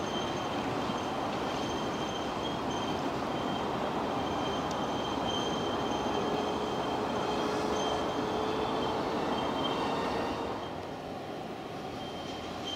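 Miniature railway train running on the track: a steady running noise with a thin, high wheel squeal that comes and goes. It drops in level about ten and a half seconds in.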